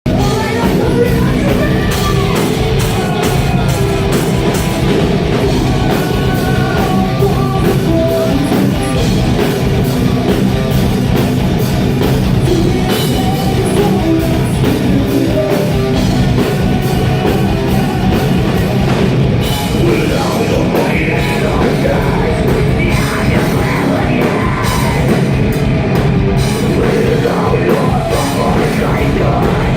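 Live metal band playing loud and without a break: fast drumming under distorted guitars. The sound is harsh and overloaded, because the phone recording it could not handle the volume.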